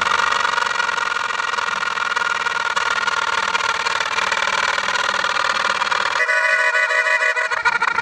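Tractor engine running, with a dense, steady exhaust sound through the silencer. About six seconds in, it changes to a cleaner, horn-like steady tone.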